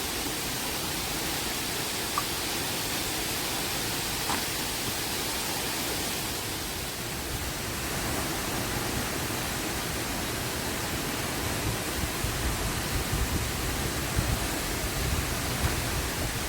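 Waterfall rushing steadily, an even hiss of falling water, with an uneven low rumble in the last few seconds.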